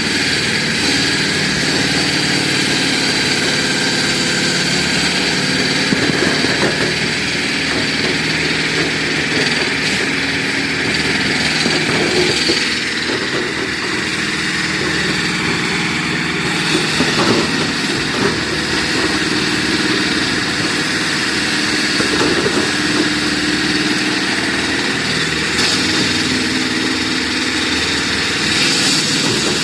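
Engine-driven concrete cutting saw running steadily: a constant engine note with a high, steady whine above it, swelling slightly a few times.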